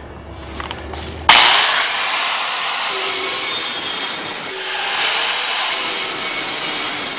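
Cheap electric angle grinder switched on about a second in, its whine rising as the motor spins up, then grinding the edge of a steel lawnmower blade with the back side of the wheel: a steady, loud grinding hiss over the motor's whine, which dips briefly about midway and recovers.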